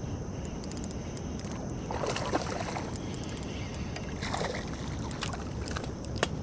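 Hooked bass splashing at the water's surface twice, about two and four seconds in, as it is reeled toward the bank, over a steady low rumble.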